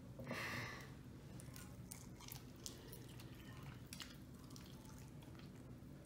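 Faint, scattered wet clicks and smacks as sauce-covered chicken wings are picked up and bitten into.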